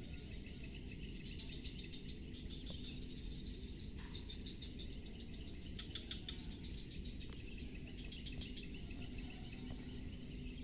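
Insects calling: a steady high-pitched drone with short bursts of rapid chirping every couple of seconds, over a faint low rumble.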